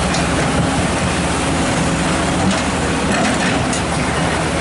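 Kobelco SK130 hydraulic excavator's diesel engine running steadily under load over rushing floodwater, with a few knocks about halfway through as the bucket works against a boulder in the current.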